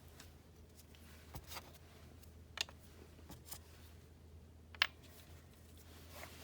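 A few faint light clicks and taps of small parts being handled, the sharpest about two and a half and five seconds in, over a low steady hum.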